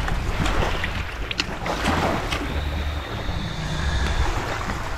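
Wind rumbling on the microphone over waves washing on a beach, with a few light clicks in the first half as a hook is worked out of a fish with pliers.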